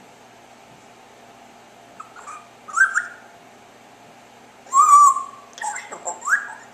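African grey parrot chirping and whistling: a couple of rising chirps about two seconds in, then a louder held whistle and a quick run of short calls, the last one rising, near the end.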